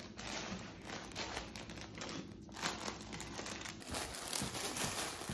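Bernese mountain dog mouthing and pawing a large plush carrot toy, the toy's fabric rustling and crinkling in irregular short bursts.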